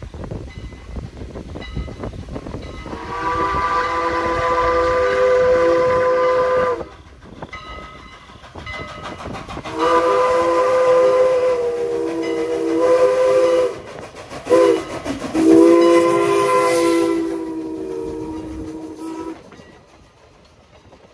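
Canadian National 89 steam locomotive's chime whistle sounding several notes at once: two long blasts, a short one, then a long one, the grade-crossing signal. As the last blast ends, the passenger cars roll past with a quieter clickety-clack.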